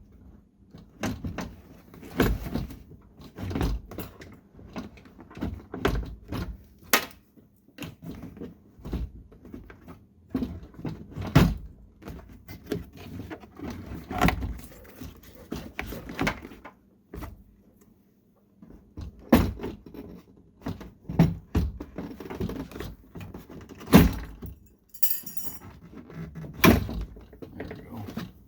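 Plastic inner door panel being twisted and worked loose from a car door: irregular clicks, knocks and rattles of plastic against the door frame, with several louder thunks.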